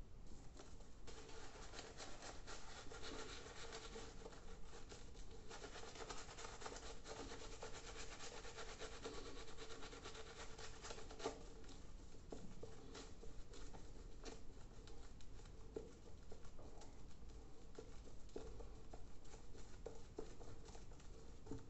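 Gillette Blue3 Sensitive disposable razor scraping through lathered stubble in many quick short strokes, starting about a second in.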